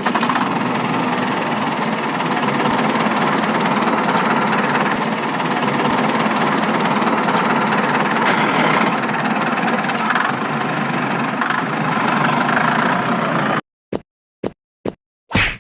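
A motor running steadily without changing speed, which starts and stops abruptly.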